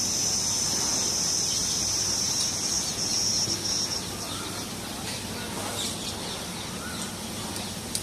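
Cricket chirring: a steady, high, even trill that fades out about halfway through, leaving faint crackles and a few short chirps.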